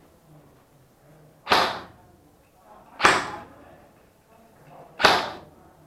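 Airsoft gun firing three single shots, each a sharp crack with a short whooshing tail, spaced about one and a half to two seconds apart.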